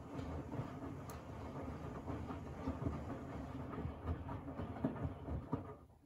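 Miele W1 front-loading washing machine, a model without a sound-insulation package, turning its drum during the wash. The rotation gives a steady rumble, with irregular soft thuds as the wet laundry tumbles. The drum stops just before the end and the sound drops away.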